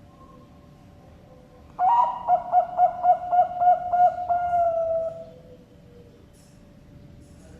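A zebra dove (perkutut bangkok) cooing one song phrase about two seconds in: a quick string of about eight pulsed coo notes that runs into a longer, slightly falling held note, lasting about three and a half seconds.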